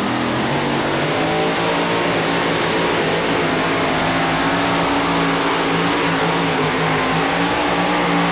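Two-wheel-drive pulling truck with a 1932 Chevy body, its engine running flat out under heavy load as it drags the pulling sled down the track. The pitch climbs in the first second, then holds at steady high revs.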